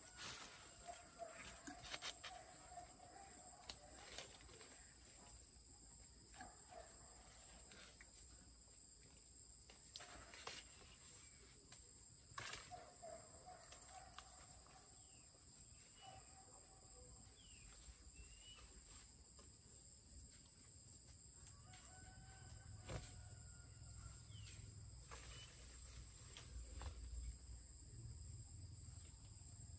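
Quiet rural outdoor ambience: a steady high-pitched insect drone, with faint bird calls a few times and a handful of sharp clicks.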